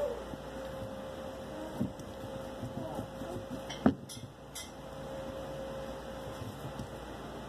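Quiet room tone with a steady faint hum, broken by a single sharp click about four seconds in and a few soft knocks.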